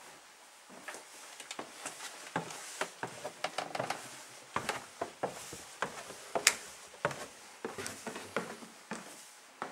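Irregular clicks and knocks in a small room, several a second, the loudest about six and a half seconds in.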